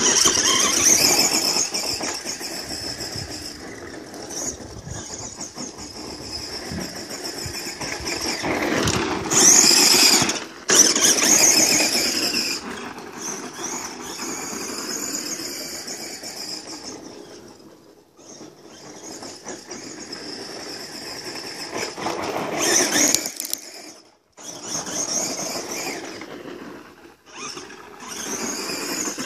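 Tamiya Lunch Box RC monster truck's electric motor and gearbox whining as it drives over gravel, with the tyres crunching on the stones. The whine rises and falls with the throttle, peaking loudly twice and cutting out briefly a few times when the throttle is let off.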